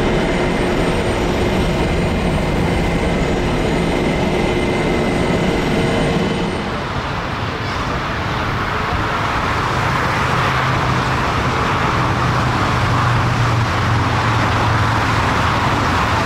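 Airbus A330-300's Rolls-Royce Trent 700 jet engines at climb power as it climbs away after takeoff: a steady jet noise with faint whining tones. About six seconds in it changes abruptly to a four-engined jet airliner's engines running at low power as it taxis, a steady hiss over a low hum.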